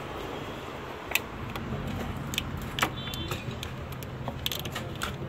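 Scattered clicks and light metallic clinks from hands handling parts in a car's engine bay, one with a brief ringing note about three seconds in, over a steady low hum.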